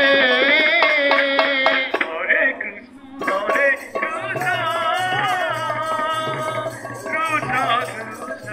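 Sambalpuri sankirtan music: a wavering, high melody with vibrato over hand-drum accompaniment, dipping briefly about three seconds in before carrying on.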